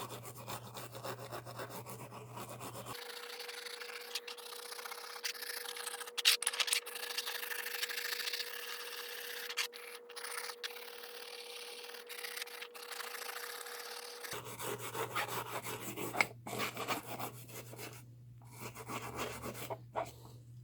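Scrubbing and scraping on cast iron utility knife halves, working off red paint softened by paint remover: an irregular rasping rub with a few sharper scrapes.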